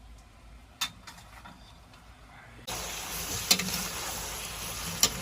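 Pork and soybean paste frying in hot oil: faint at first with one sharp click about a second in, then a steady loud sizzle starts past the middle, with two more sharp clicks.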